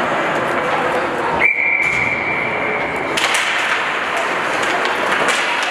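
Ice rink game noise: skates and sticks on the ice with crowd chatter in a large arena. About a second and a half in, a single steady high tone sounds for nearly two seconds and cuts off suddenly.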